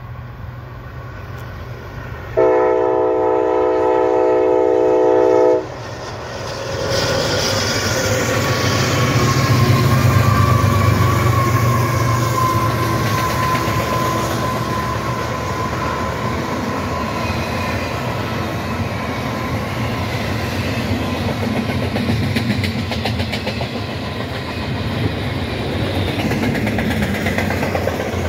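Union Pacific freight locomotive horn sounds one long multi-note blast about two seconds in. Then the lead diesel-electric locomotives pass, their rumble swelling and falling in pitch. After them comes the steady rolling clatter of a double-stack intermodal container train.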